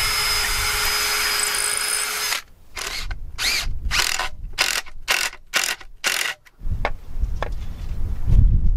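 Power drill running steadily for about two seconds, then run in about eight short trigger bursts that rise and fall in pitch, backing the screws out of a wooden spacer that split. Near the end come handling knocks and a low thump.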